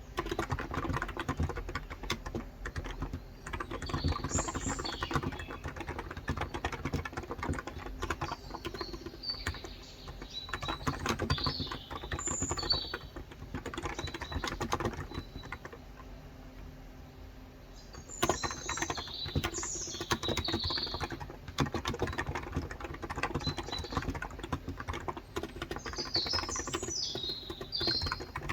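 Fast, continuous typing on a Cox Endeavor tenkeyless keyboard with 35 g electrostatic capacitive switches, easing off for a few seconds past the middle. Birds chirp in short bursts several times.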